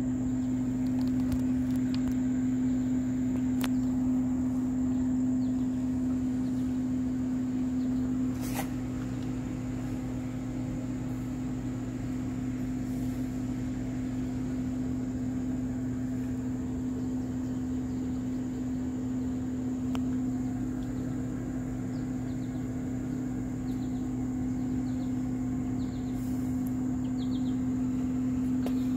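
Snack vending machine humming steadily at a low pitch, with a sharp click about eight seconds in.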